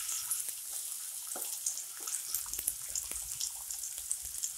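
Chopped onions sizzling and crackling steadily in hot oil in a kadai, with a few light scrapes and taps of a spatula.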